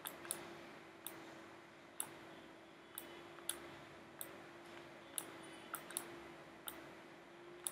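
Computer mouse button clicking: about a dozen single, sharp clicks at irregular intervals, over a faint steady hum.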